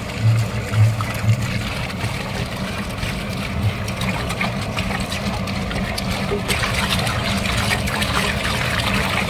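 Water pouring from a large plastic water can into a big metal cooking pot of chopped vegetables: a steady splashing stream that grows louder about two-thirds of the way through. A steady low hum runs underneath.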